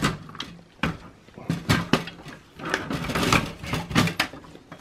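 Clicks, knocks and rubbing from a replacement power supply being handled and set into a desktop PC's sheet-metal case, its cables brushing and tapping against the chassis. A scraping stretch comes around three seconds in.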